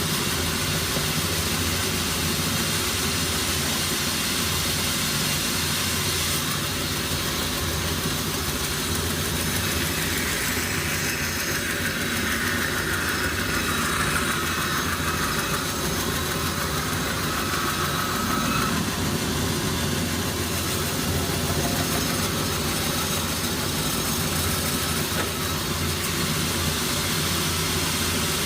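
An engine running steadily at an even speed, a low continuous hum, with a fainter higher whine that comes in for several seconds in the middle and then fades.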